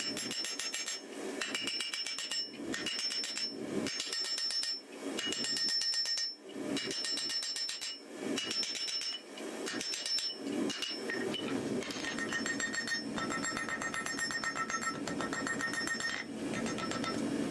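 Blacksmith's hammer striking hot steel on an anvil in quick runs of blows, with the anvil ringing over them and a few short pauses between runs.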